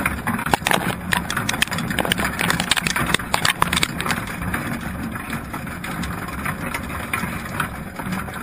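Muffled underwater sound picked up by a GoPro in its housing inside a crab pot: a steady low hum with many sharp clicks and scrapes as crabs crawl over the wire pot and the camera, the clicks thickest in the first few seconds.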